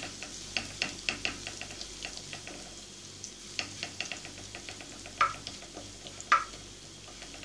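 Minced garlic sizzling and crackling in hot oil in a nonstick wok as it is lightly browned, stirred with a wooden spatula. Two louder clicks stand out about five and six seconds in.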